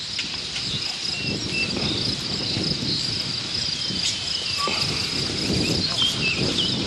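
Steady high-pitched insect chorus with a few short bird chirps over it and a low rushing noise underneath.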